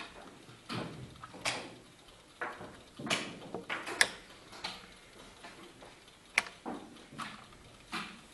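Blitz chess play: wooden pieces knocked down on the board and the buttons of a mechanical chess clock pressed, in quick irregular knocks and clicks about one or two a second, with two sharper, louder clacks about four and six seconds in.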